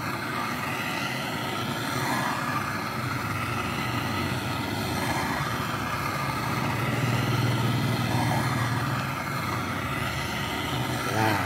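Handheld butane gas torch burning steadily, its flame heating the aluminium crankcase's crankshaft bearing housing so that the housing can be sleeved, with a steady low hum underneath.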